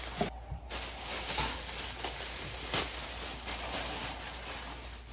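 Thin plastic bags crinkling and rustling as they are handled and pulled open, with a sharper crackle about three seconds in.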